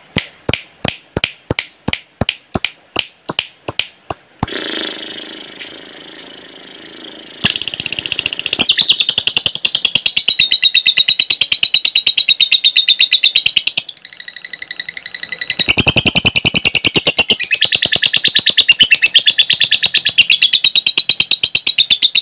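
Lovebird ngekek: long, very fast chattering trills, two runs of about six to seven seconds with a short break between. Before them comes a run of sharp ticks, about three a second.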